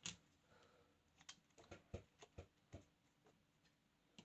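Faint, scattered clicks and taps of small twigs being handled and pressed against a cardboard carton, about half a dozen light knocks over a couple of seconds.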